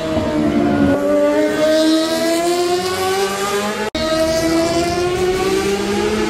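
Sport motorcycle on a race track accelerating, its engine note rising steadily in pitch; an abrupt break about four seconds in, after which the engine climbs steadily again.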